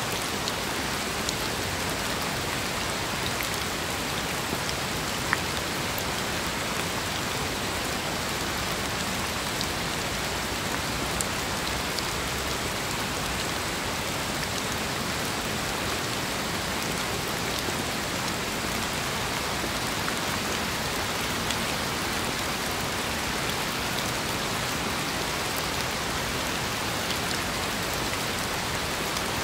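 Steady rain falling: an even hiss with scattered individual drops ticking, one louder drop about five seconds in.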